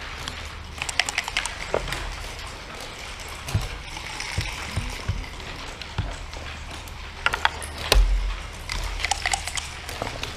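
Backgammon dice rattling and clattering onto a wooden board, then checkers clicking against the board as a player moves them, in several quick clusters of sharp clicks with a few dull knocks between.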